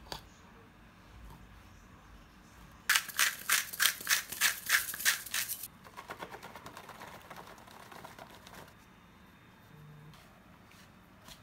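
A kitchen knife sawing in repeated strokes through the hard, scaly skin of menpachi (soldierfish) on a plastic cutting board, about three or four strokes a second. Softer scraping and rustling follows.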